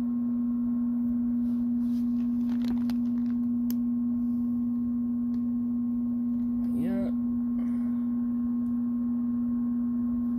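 Steady low hum, a single unwavering tone. A short rising pitched sound comes about seven seconds in, and there are a few faint clicks.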